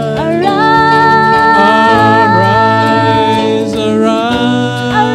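Worship song performed live: a male lead and a female backing singer hold long sung notes over acoustic guitar and keyboard with a steady low bass, moving to new notes near the end.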